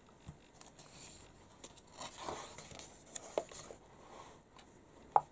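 Faint rustle of a magazine page being turned and smoothed by hand, with a few soft swishes of paper and a single sharper tick near the end.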